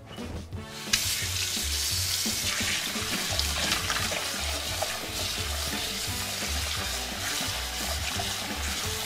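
Kitchen tap running water into a saucepan of peeled potatoes in the sink, a steady hiss that starts about a second in, as the potatoes are washed by hand.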